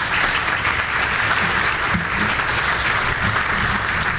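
Conference audience applauding, a steady crowd of hands clapping.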